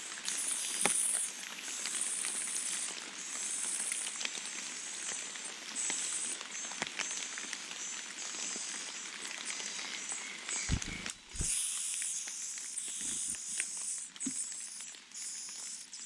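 Niltava nestlings begging at the nest: high, hissing calls that come in irregular runs of about a second each, with a few soft low thumps around the middle.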